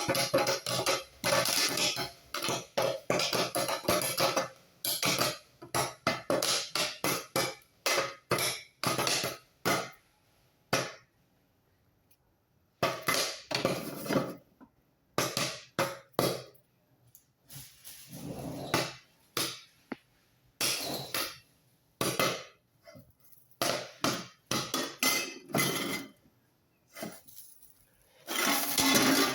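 Maize kernels popping in hot oil in a pan covered with a lid: a fast run of sharp pops against the pan and lid. The pops thin out about ten seconds in, then pick up again in bursts.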